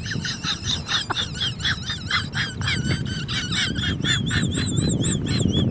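A bird calling in a fast run of high, arching chirps, about four to five a second, which grow clearer and more even near the end.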